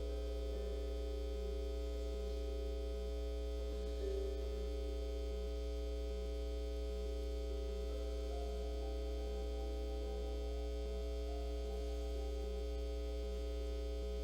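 Steady low electrical hum with several held tones above it and a faint pulsing about twice a second.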